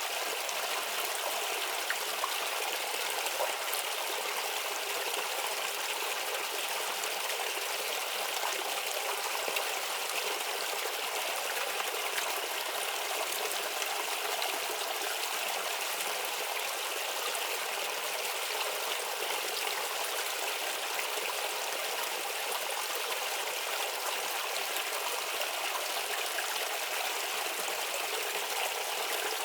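A shallow brook babbling and trickling steadily over stones.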